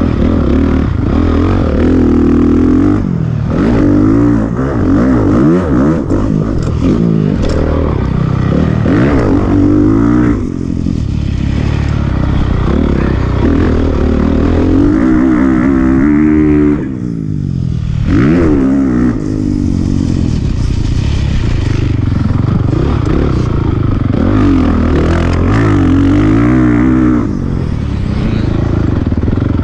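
Motocross dirt bike engine revving hard, its pitch rising and falling again and again as it is raced around the track, with the throttle briefly chopped three times: about a third of the way in, just past halfway, and near the end. Heard close from a handlebar-mounted camera, with rattling from the bike.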